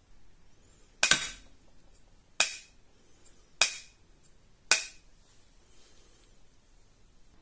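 A small spring-loaded catch on the homemade crossbow's rod being pulled back and let go, snapping shut four times about a second apart. Each snap is a sharp metallic click with a brief ring.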